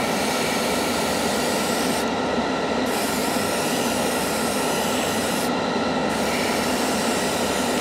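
Airbrush spraying paint at 25 psi with a steady, even hiss. The paint is thinned about 50% and comes out smooth, not struggling. The spray cuts out briefly twice, about two and five and a half seconds in, while the spray booth's extractor fan runs on underneath.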